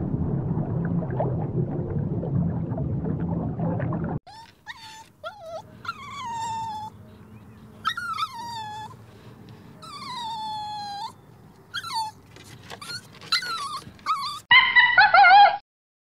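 A small dog whining and whimpering in a string of short cries, each falling in pitch. Before it, a low rushing water noise cuts off suddenly about four seconds in. Near the end comes a louder, wavering animal call lasting about a second.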